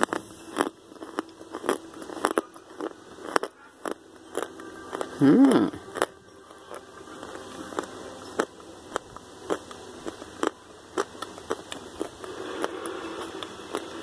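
Crunching and chewing of a bite of hard baked starch with arrowroot powder: a scattered run of sharp crunches. About five seconds in there is a short hum that rises and falls in pitch.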